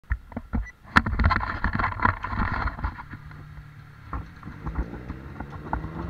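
Pedicab rattling and knocking as it rolls over uneven pavement, with a sharp knock about a second in. In the second half the rattle eases and a steady low hum of nearby motor traffic comes through.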